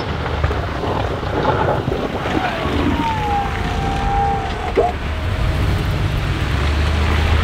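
Pickup plow truck's engine running as its front blade pushes heavy slushy snow into a pile, with wind buffeting the microphone. A short whine comes in about halfway through.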